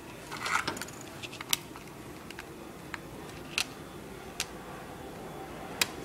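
Scattered light clicks and taps of small tools and parts being handled on a tabletop: a short cluster about half a second in, then single sharp ticks every second or so.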